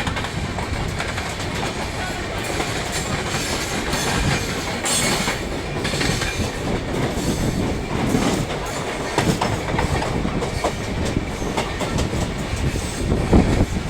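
Train coaches running at speed, wheels clattering over the rail joints in an uneven stream of clicks over a steady rush of track noise.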